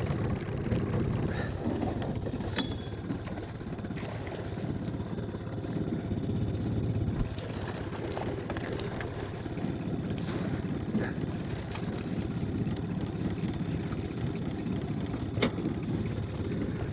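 Small Mercury outboard motor running steadily at trolling speed, with wind buffeting the microphone. A couple of sharp clicks, one early and one near the end.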